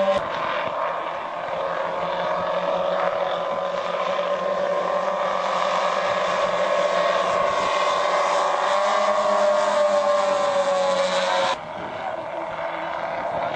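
Engines of a giant four-engine radio-controlled model B-29 bomber running as it flies past, their pitch dropping as it passes. Near the end the sound cuts abruptly to a quieter engine drone.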